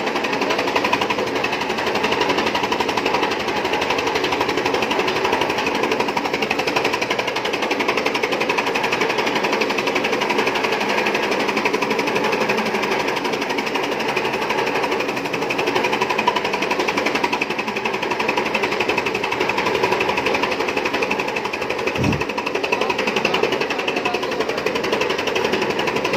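Mini chaff cutter running steadily, its blades chopping green fodder as it is fed in: a fast, even, continuous clatter.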